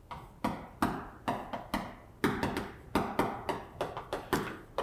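Chalk writing on a chalkboard: a quick series of short taps and scratches, about three or four strokes a second, as the letters are written.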